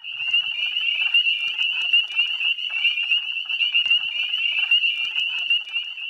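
A steady, high-pitched animal trill without a break, the night call of a frog or insect chorus at the water's edge, over softer scattered chirps lower down.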